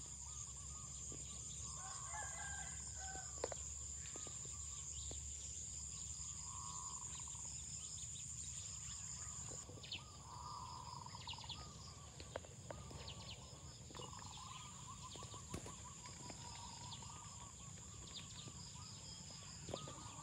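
A rooster crowing a few times over a steady high insect trill, with scattered faint clicks.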